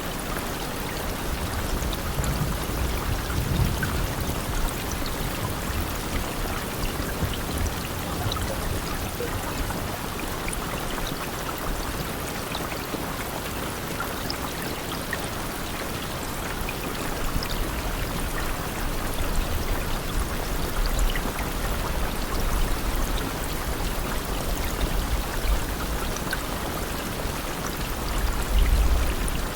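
Steady rain falling, an even hiss of water with scattered individual drop ticks and a low rumble underneath.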